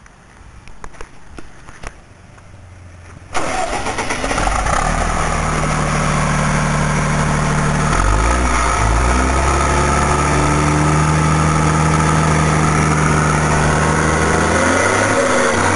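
Volkswagen 23-250E truck's diesel engine starting suddenly about three seconds in, after a few knocks, then running steadily with a brief dip in pitch about eight seconds in and a rise and fall in pitch near the end.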